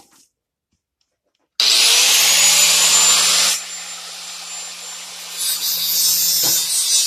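Handheld power tool starts with a high whine and cuts loudly into sheet metal for about two seconds, then runs lighter before biting in again near the end, as the rolled-over edge of a truck door skin is cut away.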